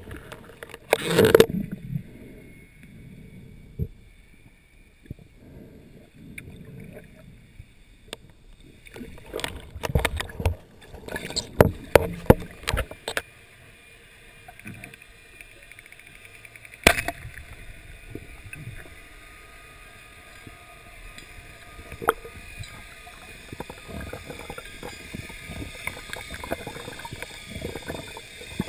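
Underwater sound picked up by a diving camera while a freediver swims: muffled water movement with scattered clicks and knocks of gear. Louder knocks come about a second in and in a cluster about ten to thirteen seconds in, and there is one sharp click about seventeen seconds in.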